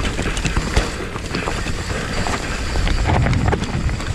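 Wind buffeting a helmet-mounted action camera's microphone over the rumble of a Bird Aeris AM9 enduro mountain bike's tyres on a rough, rutty dirt trail, with frequent sharp knocks and rattles from the bike as it hits bumps.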